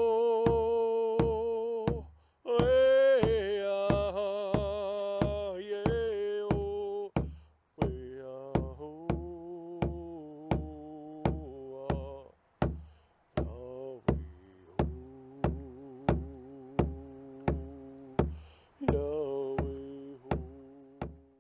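Indigenous hand-drum song: a frame drum beaten at a steady pace, about four beats every three seconds, under a man's chanting voice. The voice drops out several times while the drum keeps going, and both fade out near the end.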